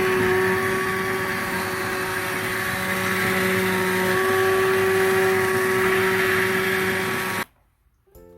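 Electric blender grinding boiled onions, its motor running at a steady pitch and then switched off suddenly near the end.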